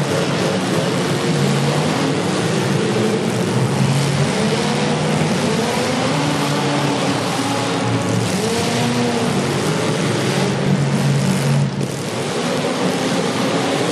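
Several demolition derby car engines revving at once, their pitches rising and falling over a constant loud wash of noise. The sound dips briefly near the end.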